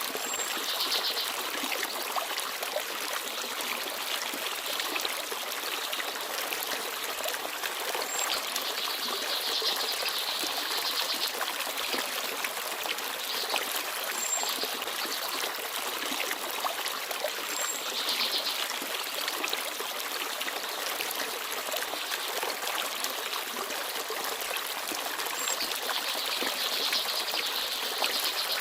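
Forest stream babbling and trickling steadily over stones. Small birds chirp over it: a few brief high single notes and several short bursts of rapid trilling.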